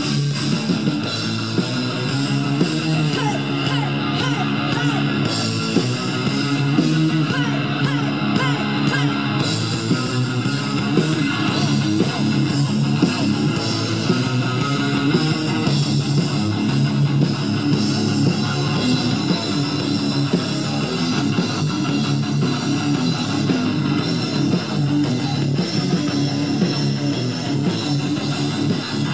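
Rock band playing live, with electric guitars and bass guitar at a steady, loud level.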